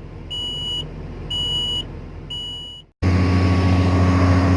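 Short high electronic beeps, about one a second, over a low hum. About three seconds in, the sound cuts abruptly to a louder, steady drone of the excavator's diesel engine running.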